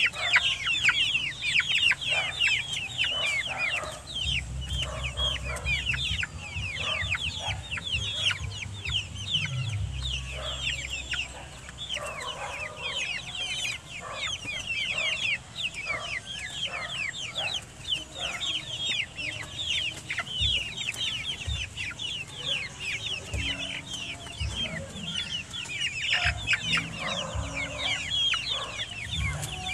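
A flock of young chickens peeping and cheeping without pause, many short high calls each sliding down in pitch, while they feed on leafy greens.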